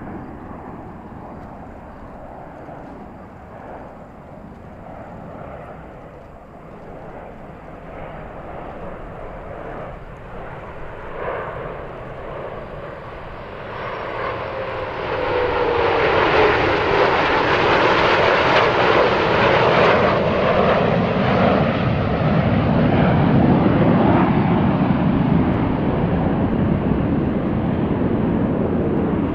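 Jet noise from CF Snowbirds CT-114 Tutor jets, whose J85 turbojets run steadily. The noise builds over the first half, then becomes a loud roar as they pass; a whine falls in pitch at the pass, and the sound then settles into a lower rumble as they fly away.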